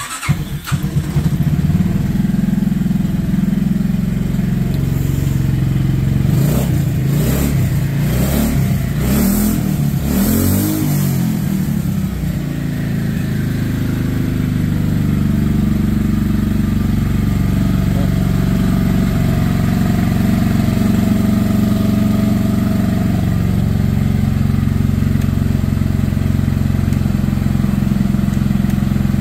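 Buggy's carbureted engine catching right at the start, revved up and down several times, then settling into a steady idle. It runs smoothly on its new carburetor and fuel lines.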